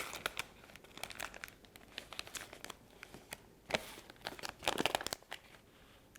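Paper crinkling and rustling with irregular crackles as it is handled and taped down, with louder bursts a little before four seconds and around five seconds in.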